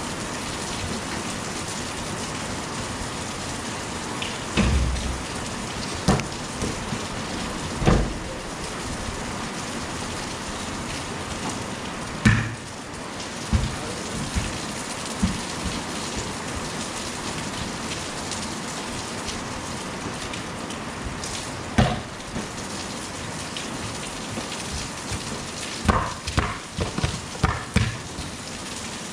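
Steady heavy rain falling on a concrete court, with occasional short thuds and a quick run of them near the end.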